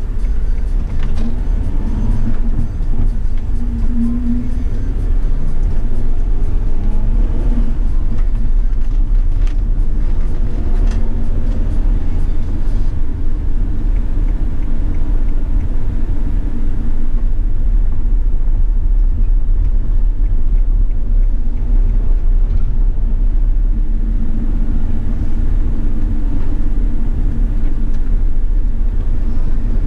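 Cabin sound of a 2016 Mercedes-Benz Sprinter 519 CDI minibus and its V6 diesel engine driving at low speed: a steady low engine and road rumble. The engine note comes through more strongly a few seconds in and again near the end.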